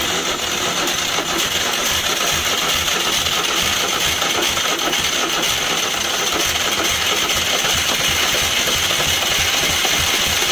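UD-2 two-cylinder engine of a homemade tractor running steadily with an even firing pulse after a repair for lost oil pressure. The sound drops away just at the end.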